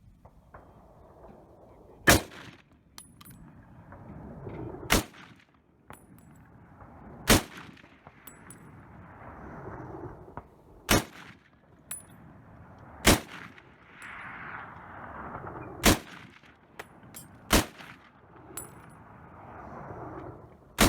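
M1 Garand rifle (.30-06) firing eight single shots at an even, unhurried pace, two to three seconds apart; the eighth comes right at the end.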